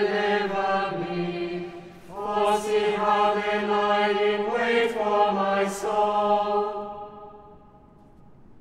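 Voices chanting a psalm verse, the words held on sustained notes in two phrases, with a short break about two seconds in. The second phrase dies away in the cathedral's long echo a little before the end.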